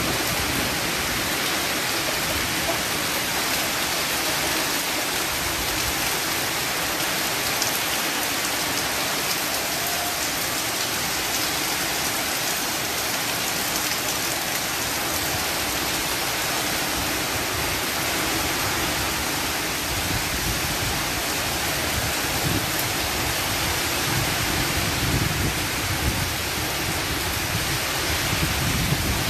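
Heavy rain pouring steadily onto leaves and paving, a dense, even hiss. From about twenty seconds in, low rumbling gusts swell beneath it.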